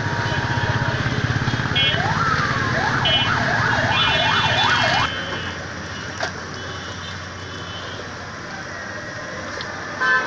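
Street traffic with several short vehicle horn beeps and a siren-like warbling wail, rising and falling rapidly, that stops abruptly about five seconds in. After that there is a quieter steady hiss and one more short horn beep near the end.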